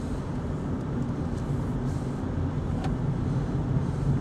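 Automatic Toyota Yaris driving at track speed, heard from inside the cabin: steady engine and road noise that slowly grows louder toward the end.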